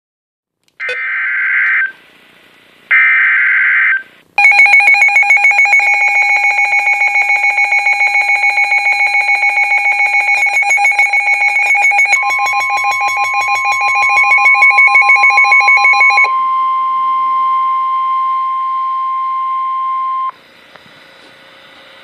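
NOAA Weather Radio emergency alert for a Severe Thunderstorm Warning. It opens with two short bursts of the SAME digital header, then a weather alert receiver's rapidly pulsing alarm beeps for about twelve seconds. About halfway through the beeping, the steady 1050 Hz Warning Alarm Tone joins it and continues alone for a few seconds after the beeping stops.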